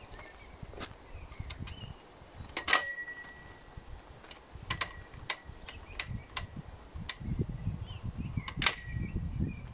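Metal clicks and clanks from a folding, wheeled miter saw stand as its legs and latches are folded and locked, about ten in all, irregularly spaced. Two of them are loud clanks, followed by a brief metallic ring. Low rumbling sets in over the last few seconds.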